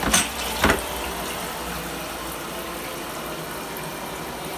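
Water spraying from a handheld shower head into a plastic bin full of toys, filling it with a steady rush. Two short knocks come about half a second apart near the start.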